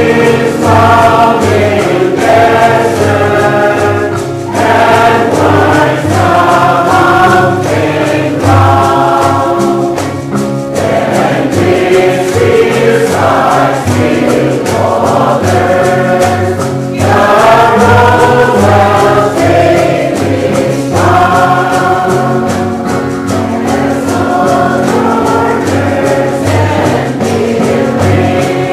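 Background music: a choir singing a Christian song over a steady, pulsing low accompaniment.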